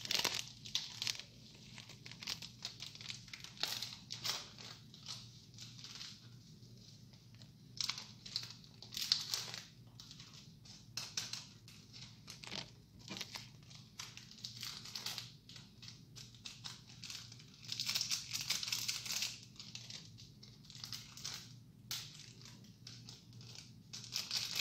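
Indomie seasoning sachets being torn open and squeezed by hand: repeated short crinkling and rustling of the thin packets, over a low steady hum.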